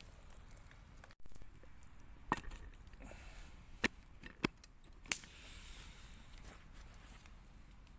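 Wood campfire crackling quietly, with a few sharp pops spread through the middle of the clip.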